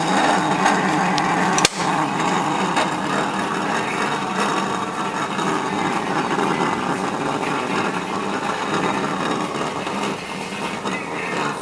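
Bialetti Mukka Express stovetop moka pot hissing steadily under pressure as it brews cappuccino, with one sharp click about two seconds in.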